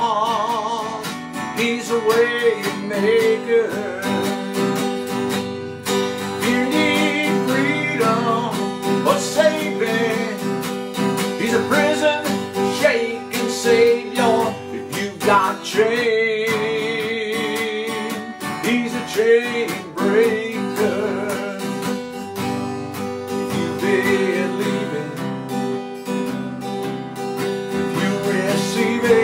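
A man singing a slow song with vibrato, accompanying himself by strumming a Fender acoustic-electric guitar.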